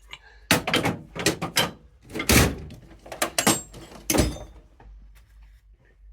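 Series of clunks and knocks from metal parts and tools being handled and set down during dismantling, about seven over four seconds, the loudest a little over two seconds in.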